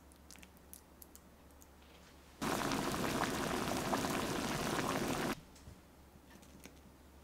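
Water at a rolling boil in a saucepan with tenderstem broccoli blanching in it: a dense bubbling that starts abruptly about two and a half seconds in and cuts off about three seconds later. Before and after it there are only faint light clicks and taps of a spoon and food on a ceramic bowl.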